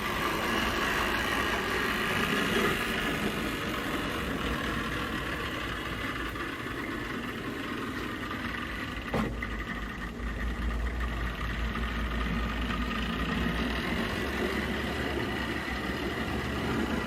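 HO-scale model diesel locomotives running on the layout: a steady rumble of motors and wheels on the track, mixed with diesel engine sound from a locomotive's onboard sound system. A single sharp click comes about nine seconds in. The track is dirty, so electrical pickup is poor.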